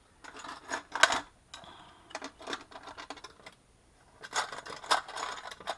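Small metal locksmithing tools, a plug follower and tweezers, clicking and clattering as they are picked up and handled on a workbench. The taps and rattles come in three quick bunches, with the sharpest click about a second in.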